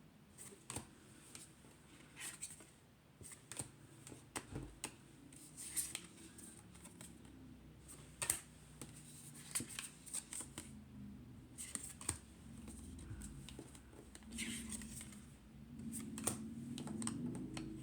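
Tarot cards being picked up and laid down one after another on a tabletop: faint, irregular clicks and short scrapes of card stock.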